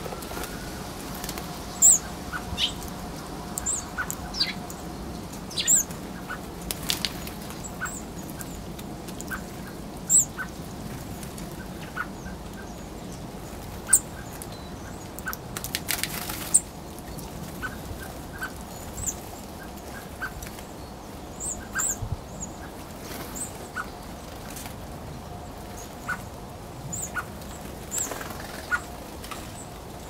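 Small songbirds at a feeder giving short, high, scattered chirps and sharp ticks at irregular intervals, with a brief rustling burst about sixteen seconds in.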